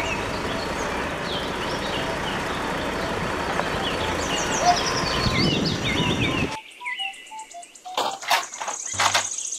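Steady outdoor noise with birds chirping over it, which cuts off about six and a half seconds in; after that only a few faint chirps, two sharp clicks and a brief high tone near the end.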